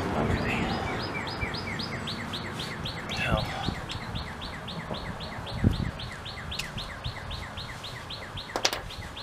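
A bird calling a rapid, even series of short chirps, about five a second, over steady background noise. A dull knock comes about halfway, and a couple of sharp clicks near the end.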